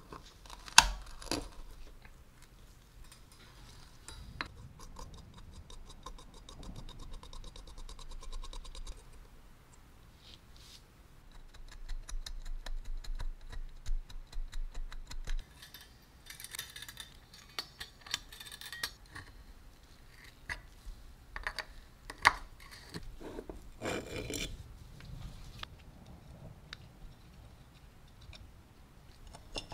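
Small hand tools working on a rusty metal terminal block with nuts and threaded posts. Sharp metal clicks and scraping come as the parts are taken apart, with the loudest click just under a second in. Runs of fast, fine ticking come a few seconds in and again around the middle.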